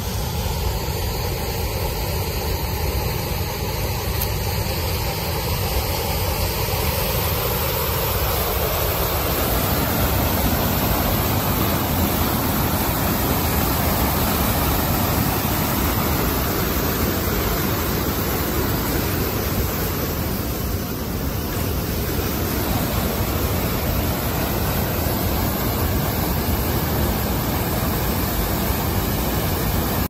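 Turbulent white water rushing steadily through a concrete channel, a continuous even rush with no break.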